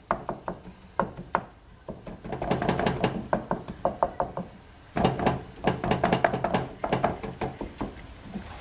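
Wooden spatula chopping and breaking up minced meat in a frying pan: quick runs of tapping knocks against the pan, in three bursts.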